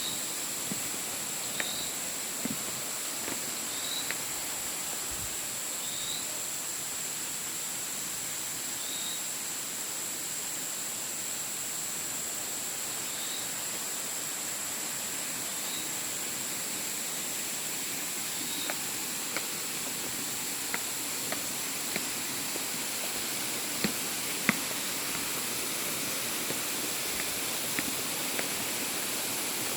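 Steady rush of falling water under a constant high insect drone, with a short high chirp repeating about every two seconds through the first two-thirds and a few scattered clicks.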